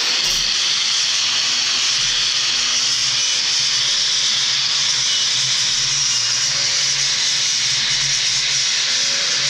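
Angle grinder running with its disc held against plasma-cut sheet steel, grinding down the cut piece in one steady, unbroken run. It cuts off suddenly at the very end.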